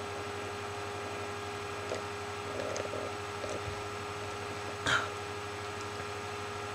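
Faint sips through a plastic drinking straw from a fountain-drink cup, then one short hiccup about five seconds in, over a steady electrical hum.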